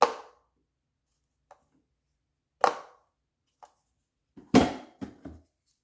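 Hard plastic clacks from a hair dryer's magnetic diffuser attachment being snapped onto the nozzle and handled: one clack at the start, another a little over two seconds later, and a quick run of three near the end, with faint ticks between.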